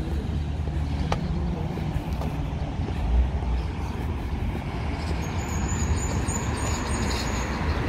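Road traffic on a busy city street: a steady rumble of passing cars, with one low thump about three seconds in.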